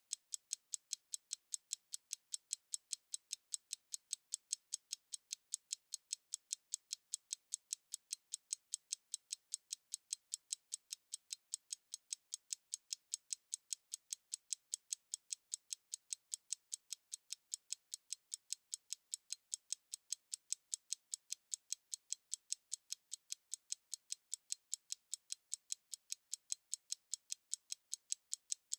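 Analog stopwatch ticking steadily, about five crisp, thin ticks a second.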